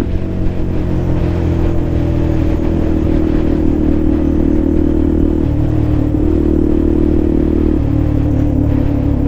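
Benelli TNT125's single-cylinder engine and exhaust heard from the saddle while riding, a steady engine note that shifts in pitch a few times with throttle and gear changes.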